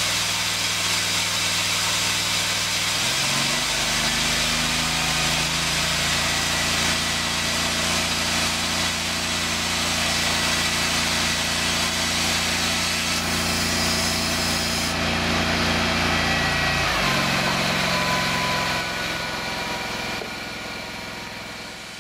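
Bead-insulation injection machine running steadily, with air and insulation beads hissing through the hose and gun into the wall cavity. Its motor hum changes pitch about three seconds in and changes back about seventeen seconds in, and the sound fades near the end.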